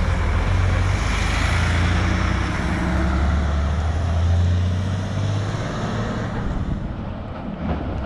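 Small dump truck driving past close by over a railway level crossing: a steady low engine hum with tyre noise, loud at first, then fading as it pulls away about six seconds in.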